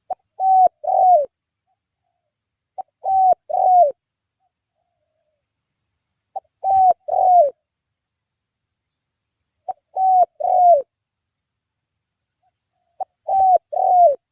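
Spotted dove (tekukur) cooing in five phrases, about one every three seconds. Each phrase is a short clipped note followed by two longer coos that drop in pitch at the end.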